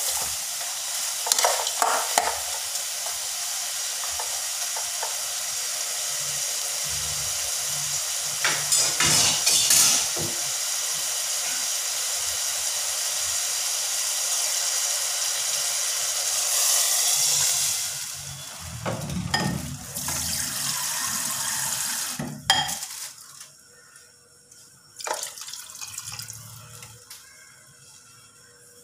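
Chicken pieces sizzling in a metal pot, stirred now and then with a spatula scraping the pot. About eighteen seconds in, water is poured in for a few seconds and the sizzling dies away, leaving only a few knocks.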